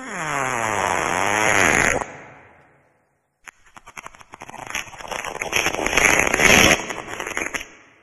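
Two wet fart sounds. The first is pitched and lasts about two seconds, its tone falling and wavering; after a short gap the second is a sputtering, crackling run of pops that builds for about four seconds.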